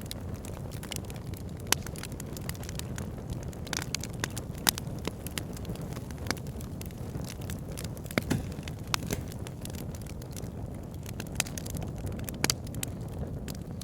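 Log fire burning in a fireplace: a steady low rumble of flame with frequent, irregular crackles and pops from the burning wood, a few of them much louder.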